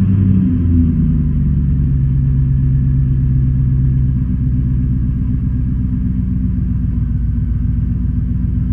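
V8 engine idling with a deep, steady rumble, dropping back to idle from a light rev in the first second.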